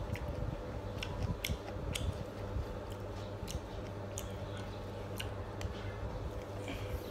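A person chewing a mouthful of stir-fried noodles with the mouth closed, giving short wet mouth clicks at irregular intervals over a steady low hum.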